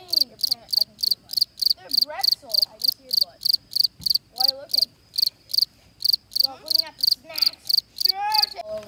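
Insect chirping in a steady rhythm, about three sharp high-pitched pulses a second, with fainter pitched calls a few times underneath. The chirping stops abruptly near the end.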